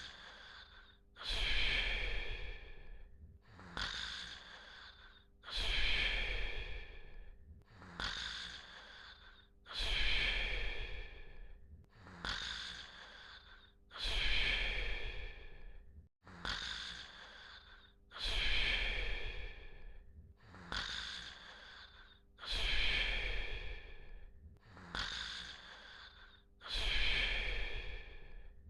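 Snoring in a steady, even rhythm: a loud snore about every four seconds, each followed by a softer breath out.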